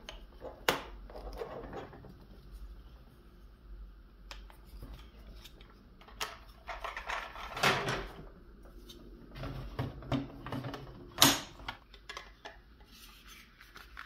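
Hard plastic toy crane parts being handled and fitted together: scattered clicks and clacks, with a few sharper knocks, the loudest near the end.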